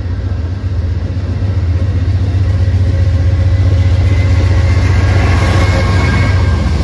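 Amtrak train's diesel locomotive running with a deep, steady engine drone, getting louder over the first few seconds.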